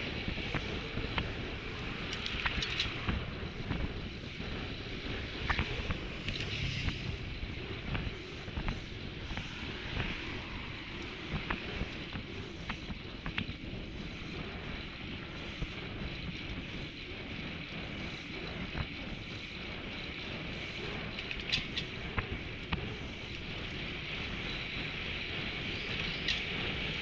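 Wind buffeting the microphone of a road bike rider at about 20 to 30 km/h, over a steady rumble of tyres on asphalt, with scattered light clicks.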